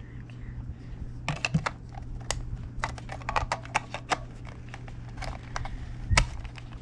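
Irregular small plastic clicks and taps from a game controller's battery and casing being handled and fitted back in, with a louder knock about six seconds in.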